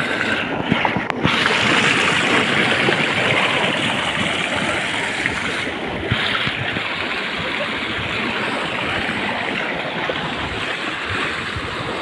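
Shallow river water rushing over sand and rocks in a small riffle: a steady rushing and gurgling noise, dipping briefly about halfway through.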